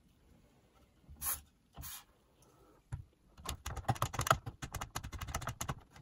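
Two short hisses of aerosol contact cleaner sprayed into a vintage radio cassette's switches, about a second apart. From about halfway through comes a rapid, irregular run of small plastic clicks as the switches are worked back and forth to spread the cleaner.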